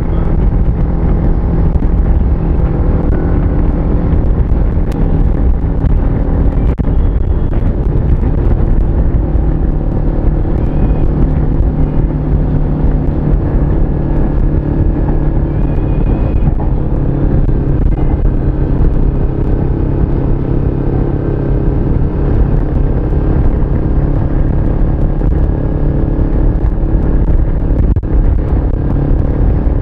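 Motorcycle engine running at a steady road cruise, heard from the rider's position, with low wind rumble on the microphone.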